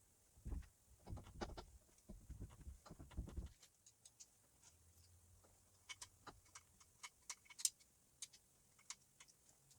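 Faint handling noise of small parts being refitted by hand: soft low bumps for the first few seconds, then scattered light clicks.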